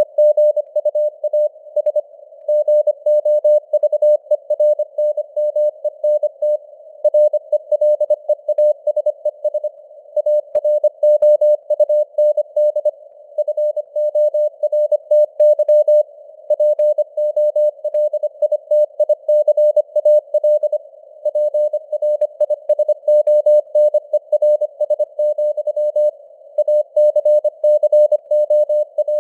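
Morse code (CW) sent at 25 words per minute: a single tone of about 600 Hz keyed on and off in rapid dots and dashes with short pauses between groups. It sits in a narrow hiss of simulated radio noise with simulated fading of the signal strength.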